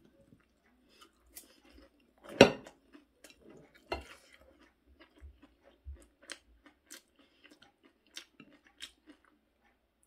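Chewing food, with small scattered clicks of metal chopsticks against a glass bowl and dishes. A sharp knock about two and a half seconds in is the loudest sound, with a smaller one about a second and a half later.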